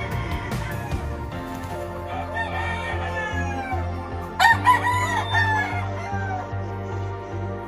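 Gamecock crowing twice over steady background music: a fainter crow about two seconds in, then a louder one about four and a half seconds in.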